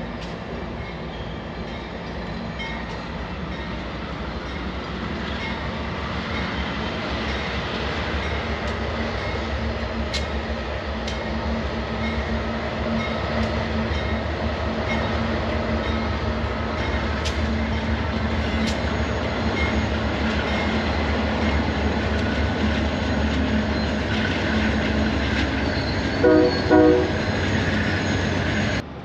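Union Pacific diesel freight locomotives running past at close range, their engine drone growing steadily louder as they approach. A brief train horn blast sounds near the end.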